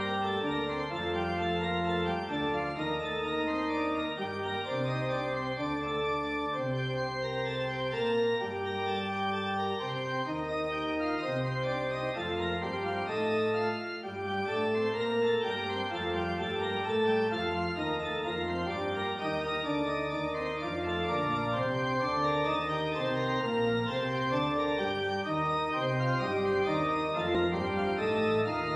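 Music: a slow passage of sustained organ chords, the notes changing about every second.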